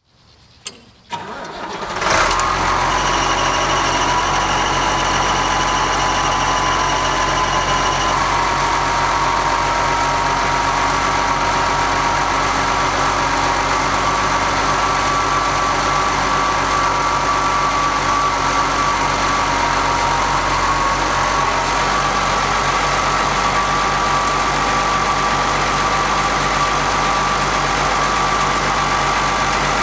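Ford TW-20 tractor's turbocharged six-cylinder diesel engine being started: two clicks, then it catches about two seconds in and runs steadily with a high whine over the engine note. A thin high tone sounds for about five seconds just after it starts.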